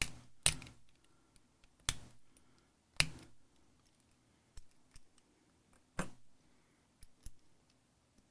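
Small metal parts of a gutted Segal lock, its pins and cylinder pieces, clicking as they are set down and handled on a hard surface. There are five sharp clicks, spread irregularly, with fainter ticks between them.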